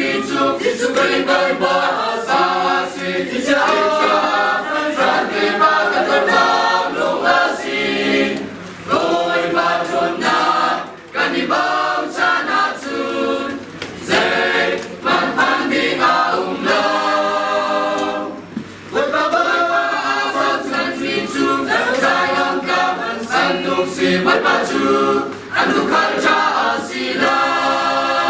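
Mixed choir of men's and women's voices singing unaccompanied, in phrases with short breaks between them, ending on a held chord.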